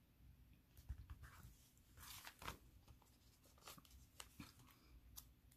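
Near silence with faint handling of paper and stickers: a few light ticks and a short paper rustle about two seconds in.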